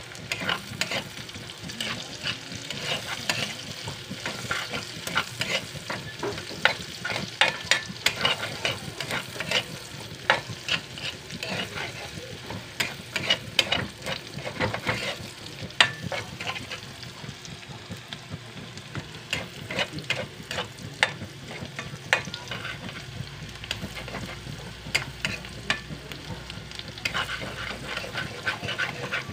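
Metal spoon stirring and scraping chopped vegetables in a dark wok, with irregular clinks and scrapes against the pan over a steady sizzle of frying.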